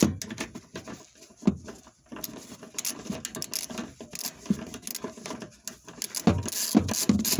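Socket ratchet clicking in quick, irregular runs of short clicks as a nut is backed off, gets more dense and louder near the end.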